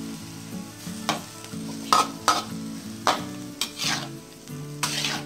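Metal spatula scraping and stirring broccoli in a wok over high heat, about seven sharp strokes, over steady sizzling as the freshly added water hits the hot pan.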